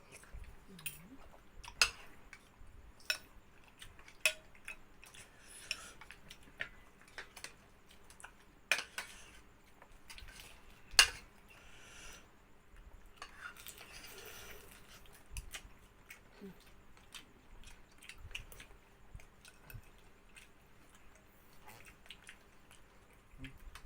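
Spoons clinking against bowls and plates during a meal: irregular sharp clinks, a few louder than the rest, the loudest about eleven seconds in, with quieter eating sounds between.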